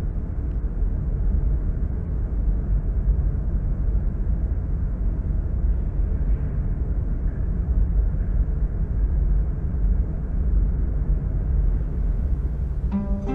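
Automatic car wash spraying water onto the car, heard from inside the cabin as a steady, loud, low drumming rush. Guitar-like music comes in near the end.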